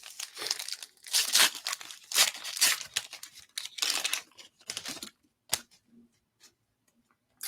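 A trading card pack's wrapper being torn open and crinkled, in quick irregular rips and rustles for about five seconds, followed by a few light taps.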